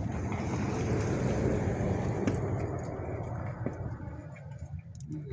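A motor vehicle passing by: a broad rush of engine and road noise that swells to its loudest about a second and a half in and fades away over the next few seconds. A couple of faint clicks sound during the fade.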